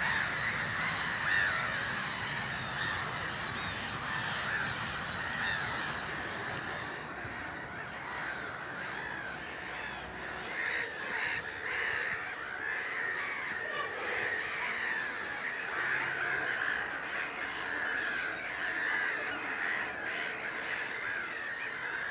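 A large flock of birds calling continuously, many calls overlapping into one dense chorus; some higher calls drop out about a third of the way through.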